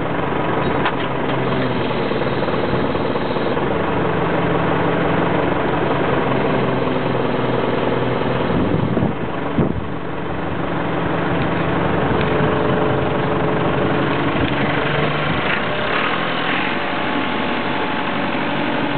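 JCB 215E backhoe's diesel engine running steadily, with one sharp knock about halfway through.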